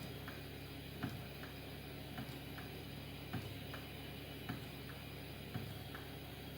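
CNC 6040 router's stepper motor ticking as the axis is jogged 0.01 mm at a time, a soft click about once a second with fainter ticks between, over a steady low hum.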